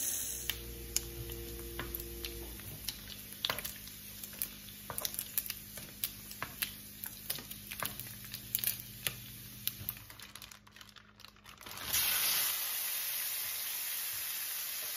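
Bacon frying in hot grease in a nonstick pan, with many sharp separate pops and snaps of spattering fat. Near the end a loud steady sizzle starts suddenly as ground beef goes into the hot bacon grease.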